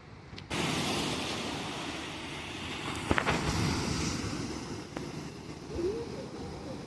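Ocean wave breaking on the shore with a sudden rush about half a second in, then surf washing and slowly fading.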